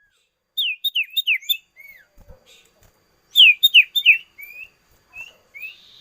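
A songbird singing: two quick runs of about four sharp, downward-sliding whistled notes, the first about half a second in and the second about three and a half seconds in, with softer single notes between and after.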